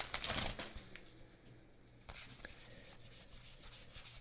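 Foil booster pack wrapper rustling as a stack of Magic: The Gathering cards is slid out, then the cards faintly rubbing against each other as they are fanned through, in light repeated strokes.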